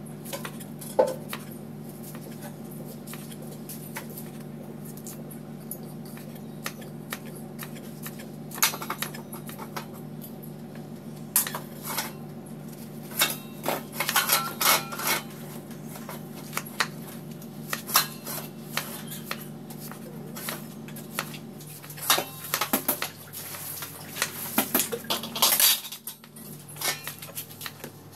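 Kitchen knife slicing a raw banana flower on a round wooden chopping board. Irregular crisp cuts and taps of the blade on the wood come in quick runs.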